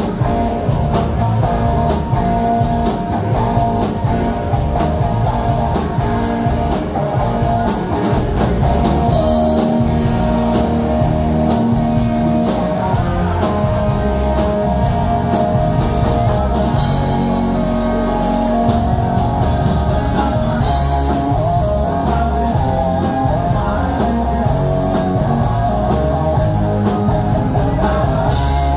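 Live rock band playing loudly and without a break: electric guitar, bass guitar and drum kit, with a male lead singer.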